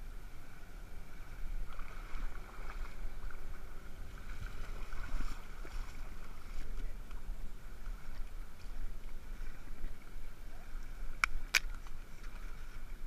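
Wind buffeting the microphone and water lapping at the shoreline. Near the end come two sharp clicks in quick succession.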